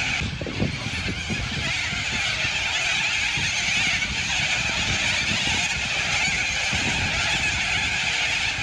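A huge flock of white cockatoos screeching all at once: a dense, unbroken din of harsh calls with a low rumble underneath.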